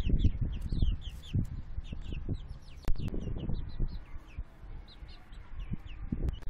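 Young chickens peeping: a continuous run of short, falling chirps, several a second. Low knocks and rustles underneath, with one sharp click about three seconds in.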